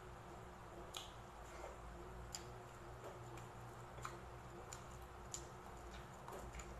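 A person chewing crispy fried pork belly with the mouth close to the microphone, with four sharp crunches about a second apart over soft wet chewing.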